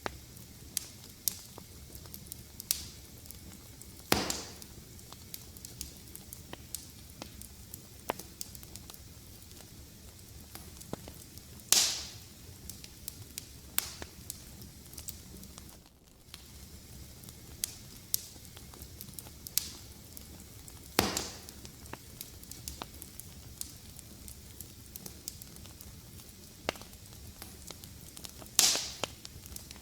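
Fireplace fire crackling over a low hiss: frequent small sharp ticks, with four louder pops spread through it.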